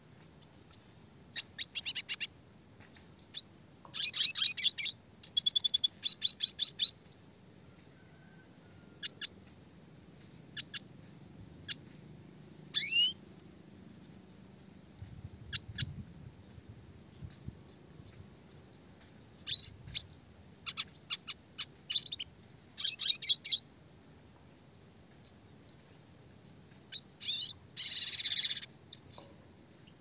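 Red siskin (Spinus cucullatus) singing: scattered short high chirps broken by quick bursts of fast repeated trilled notes, with a dense, buzzy trill near the end.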